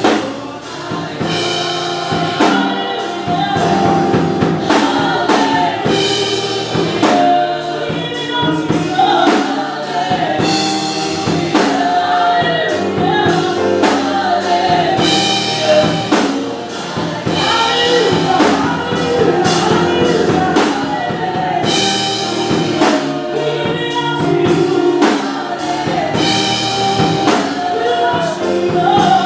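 Gospel choir singing with a band, drum kit keeping a steady beat.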